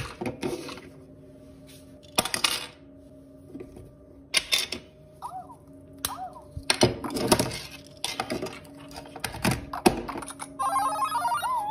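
Plastic clicks and knocks of LEGO power-up pieces being fitted onto interactive LEGO Super Mario figures, with short electronic chirps from a figure's built-in speaker and a brief electronic jingle near the end.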